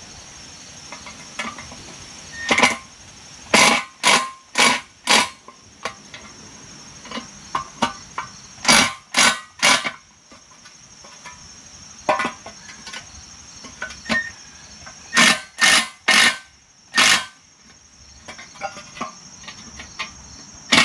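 Cordless drill/driver run in about a dozen short trigger bursts, grouped in threes and fours, working on a steel lawn-tractor muffler. Crickets chirp steadily behind.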